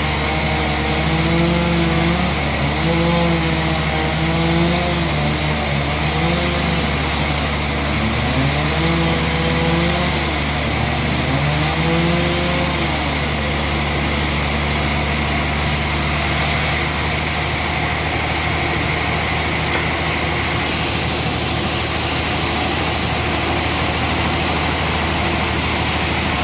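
An engine running steadily and loudly. For about the first half, a wavering pitched sound rises and falls over it, then fades out.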